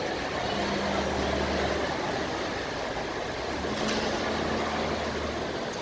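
Road traffic: a steady rush of vehicle noise, with a low engine hum that comes in twice, about half a second in and again near four seconds.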